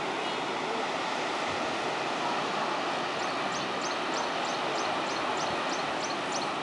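Steady rushing of surf breaking on the shore below. About three seconds in, a bird calls a quick series of short, high, falling notes, about four a second, for some three seconds.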